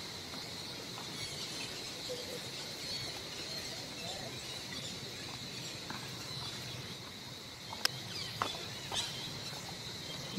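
Outdoor natural ambience with a steady, high-pitched chirring. A few short sharp clicks and small splashes come near the end.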